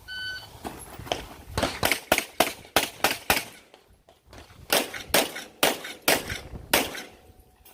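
Shot-timer start beep, then a 9mm stock service pistol fired in rapid strings of shots, a few tenths of a second apart, with a pause of about a second partway through.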